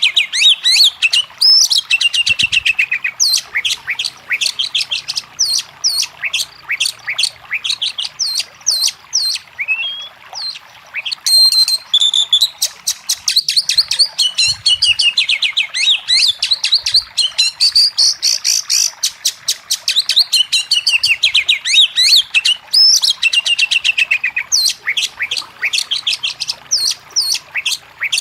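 Oriental magpie-robin (kacer) singing a loud, fast, varied song: rapid trains of repeated chirps and whistles that run on almost without pause, with a short lull partway through.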